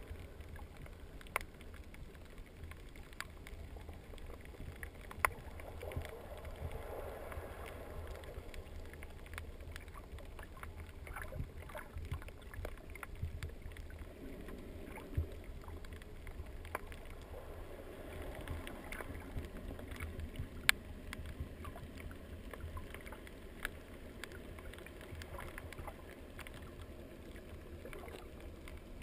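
Underwater ambience heard through a GoPro Hero 2's waterproof housing: a steady dull low rumble with sharp clicks and crackles scattered throughout, a few of them much louder than the rest.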